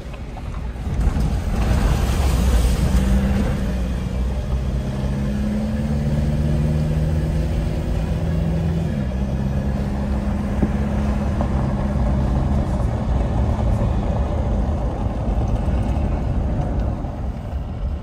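A 4WD driving, with its engine running steady under a low road and tyre rumble. A louder rush of hiss comes about two seconds in and lasts about a second.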